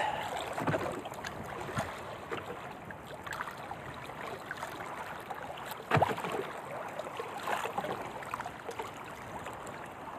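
Choppy water lapping and splashing against a small wooden outrigger canoe in the wind, with a few sharp knocks on the boat, the loudest about six seconds in.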